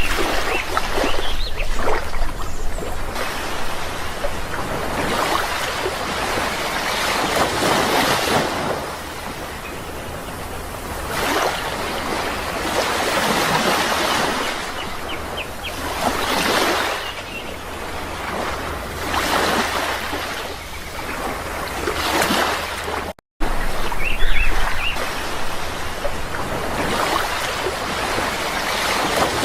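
Sea waves breaking on a shore, the surf swelling and falling away every few seconds. A few bird chirps come through near the start and again just after the sound cuts out for a moment about 23 seconds in.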